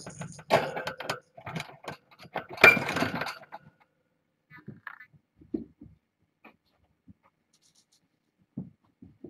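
Kittens scampering and knocking toys about: a burst of clattering and jingling over the first three seconds or so, then a few soft scattered thumps.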